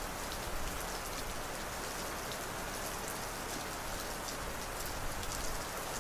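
Steady rain, an even hiss with scattered faint patter of drops.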